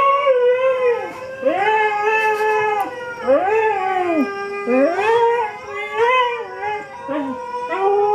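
Husky howling in a string of about six drawn-out calls, each rising and then falling in pitch, with short breaks between them.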